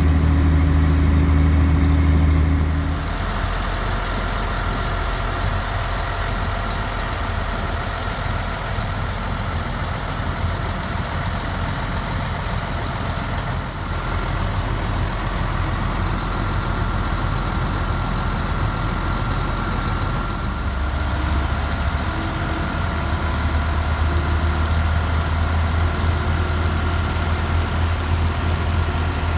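Sewer vacuum truck's diesel engine running steadily with a low drone. The note changes about three seconds in and gets louder again about two-thirds of the way through.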